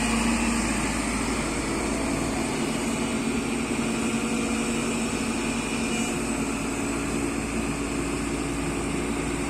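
Hyundai Robex 140W-7 wheeled excavator's diesel engine running steadily, a constant hum with no hammer blows.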